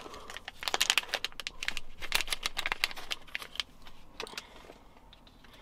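Small foil anti-static pouches crinkling as they are opened by hand, a dense irregular crackle that thins out after about three and a half seconds.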